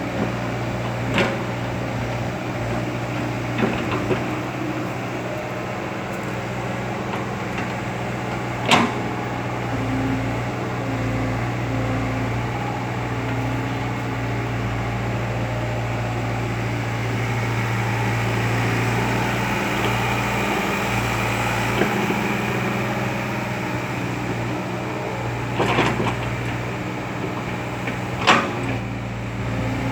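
KOBELCO Yutani hydraulic excavator's diesel engine running steadily, swelling a little about two-thirds of the way through, with a few sharp knocks from the machine.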